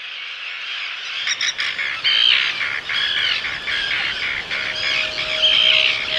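A flock of seabirds calling: many short, overlapping calls that swell in over the first couple of seconds.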